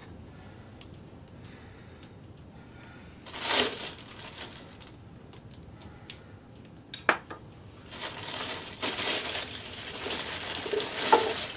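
Plastic packaging being handled and crinkled around a wooden ukulele kit body, with a few light clicks and taps of small parts. Mostly quiet at first, a brief rustle about three seconds in, sharp clicks around seven seconds, then steady crinkling through the last few seconds.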